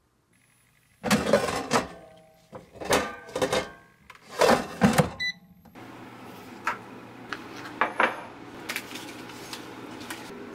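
Loud clattering knocks and clinks of kitchenware, then the steady hiss of a DOMO electric gooseneck kettle heating water, with light clinks as a ceramic mug is set down on the counter near the end.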